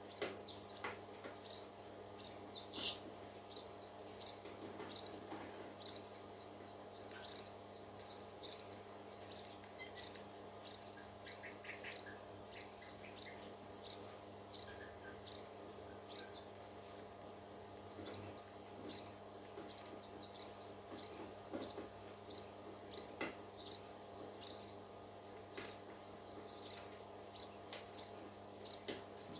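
A parrot chick peeping in short, high-pitched chirps, many in quick runs, over a steady low electrical hum.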